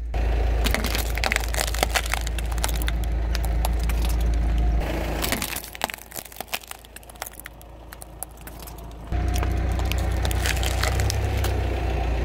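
Car tyre rolling over smartphones on paving stones, their glass screens cracking and crunching in many sharp snaps over a low rumble from the car. The rumble drops away for a few seconds near the middle while the cracking goes on, then returns.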